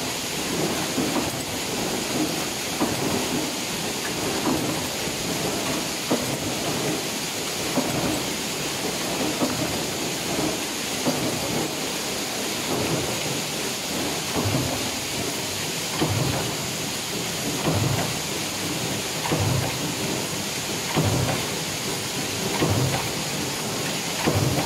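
Power press running a progressive stamping die for cabinet hinge parts: a steady mechanical din with a dull thud at each stroke, about one a second.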